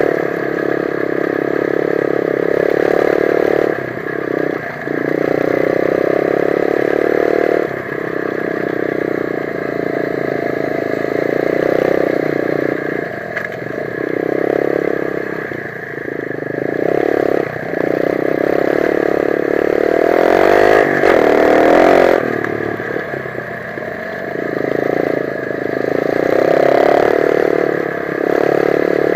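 125 cc dirt bike engine running under throttle, its pitch easing off and picking up again every few seconds as the rider shifts and backs off, with clattering from the bike. The engine note sweeps up and down about two-thirds of the way through.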